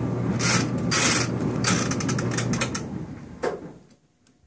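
Older gas clothes dryer running with a steady hum while its mechanical timer knob is turned, ratcheting in several short bursts. The dryer is being switched off: the motor cuts out a little under three seconds in and the drum winds down to near silence.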